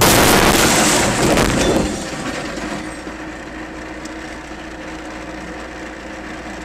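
Car crash recorded from inside the car: a sudden loud impact with the windshield cracking, about two seconds of crashing and breaking noise, then a steady hum as the car sits stopped.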